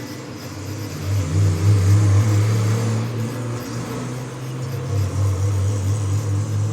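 A motor or engine running with a steady low hum that grows louder about a second in.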